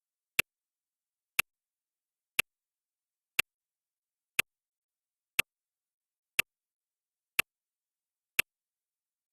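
Countdown timer's clock-tick sound effect: one short, sharp tick every second, ten in all, with dead silence between the ticks.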